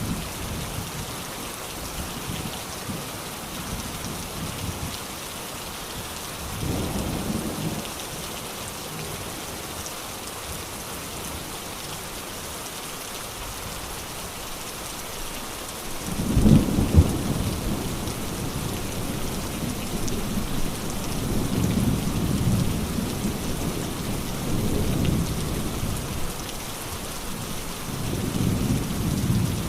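Steady heavy rain hissing throughout, with thunder rumbling underneath. A short rumble comes about seven seconds in. A louder crack and a long rolling rumble follow from about sixteen seconds, and the rumbling swells again near the end.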